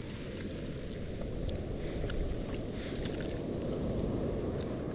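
Surf washing up the beach with wind buffeting the microphone: a steady low rumbling noise. A few faint clicks come through as pliers work the hook in the shark's mouth.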